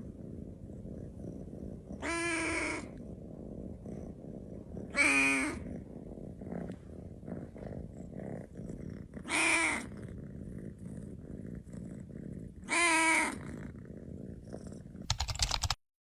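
A cat meowing four times, each a drawn-out, wavering call about half a second long, a few seconds apart, over a steady low rumble. The sound cuts off abruptly near the end after a brief crackle.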